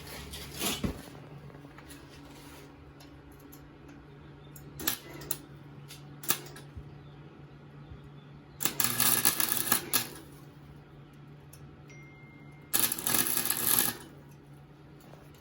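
Arc welder tacking an adapter pipe onto an exhaust mounting piece: two crackling, sizzling bursts of welding, the first about a second and a half long and the second about a second, with a few brief crackles before them and a steady low hum underneath.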